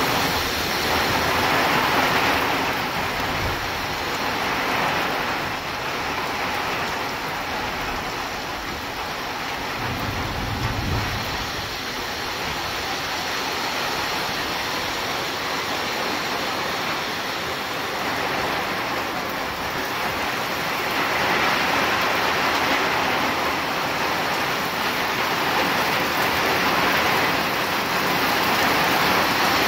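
Heavy rain pouring in a thunderstorm downpour, a dense steady hiss that swells and eases with gusts of wind, with a brief low rumble about ten seconds in.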